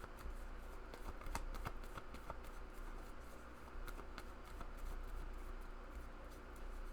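Tarot cards being handled and shuffled: faint papery clicks and rustles, over a steady low hum.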